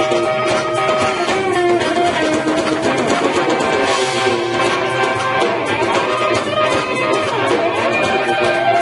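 Live band playing an instrumental passage, with electric guitar to the fore.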